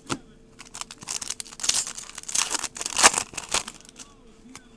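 Baseball trading cards and their pack wrapper being handled by hand: rustling with crinkling and sharp clicks, busiest from about one and a half to three and a half seconds in.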